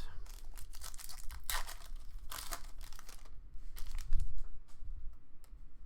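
A trading-card pack wrapper crinkling and tearing as it is ripped open, with cards rustling. A low thump about four seconds in.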